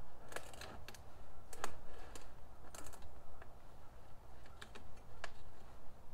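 Irregular light clicks and taps of a Dura-Tech stainless steel chimney pipe section being worked down onto the joint, metal knocking and catching on metal as it is seated.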